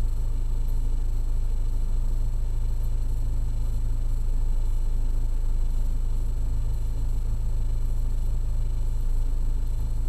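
A steady, loud low rumble with no change in level or pitch.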